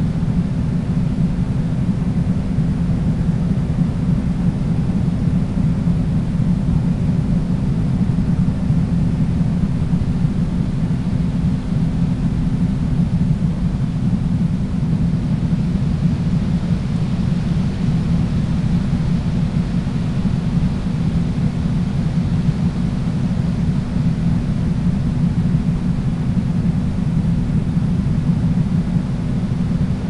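Steady low rumble of a vehicle in motion, with a faint steady hum underneath that fades out about halfway through.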